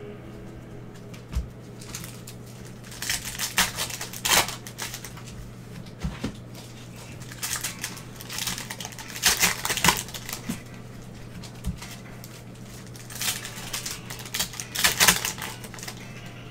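Baseball card packs being opened and the cards handled: three spells of crisp rustling and clicking as wrappers are torn and cards slid and riffled, with a few single soft taps of a stack on the table. A steady low hum runs underneath.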